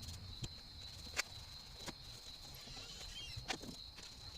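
A few sharp, scattered clicks and knocks from parts being handled, over a steady high-pitched insect trill.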